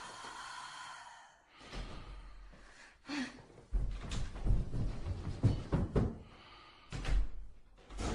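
A breathy gasp, then a run of sharp knocks and thumps about three seconds in, with another thump near the end.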